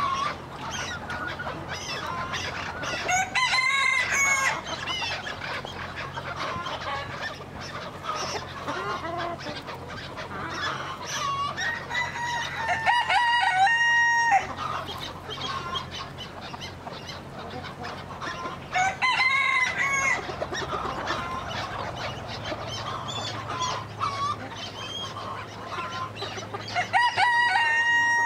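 A rooster crowing four times, about every eight seconds, over the continual clucking and chatter of a flock of chickens.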